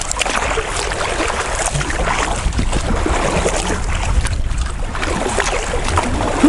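Wind buffeting the microphone and choppy water slapping and splashing against a kayak's hull as it is paddled into a headwind, with a steady rumble and scattered splashes.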